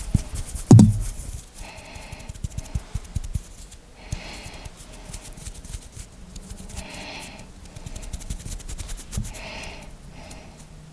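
Close-miked ASMR hand and finger sounds: a quick run of crisp finger clicks and taps, with a heavier thump about a second in. After that come soft swishing rubs every couple of seconds.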